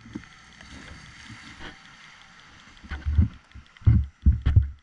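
Irregular low thumps and rumble on a helmet camera's microphone, bunched together in the last two seconds, over a faint steady hiss.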